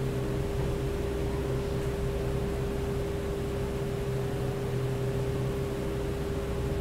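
Steady machine hum with a constant mid-pitched tone over a lower drone and an even hiss, unchanging throughout.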